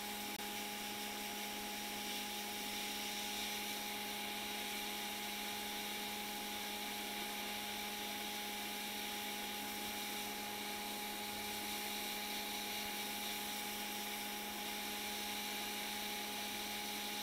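Hot air rework station blowing on a circuit board to melt the solder under a chip: a steady hum with a hiss of air.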